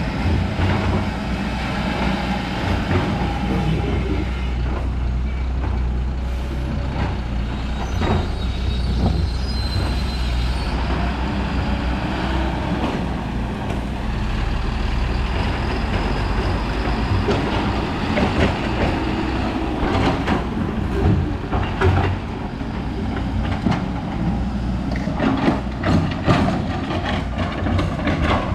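Heavy diesel truck engine running steadily as a tipper truck reverses, with scattered knocks and clatter.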